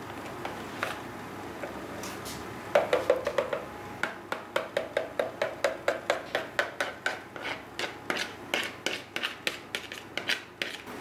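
Metal spoon scraping thick sour-cream topping out of a plastic tub, in quick repeated strokes of about four a second that begin about three seconds in.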